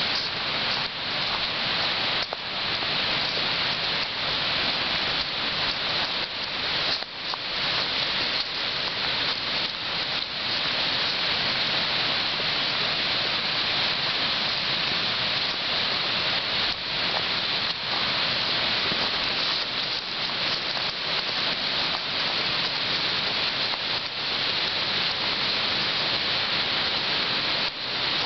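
Steady rush of running water, an even hiss without pauses, with a few faint knocks here and there.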